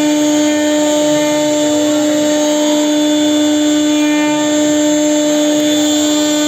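A CNC router spindle runs with a steady whine while its bit carves relief patterns into a solid wooden door panel.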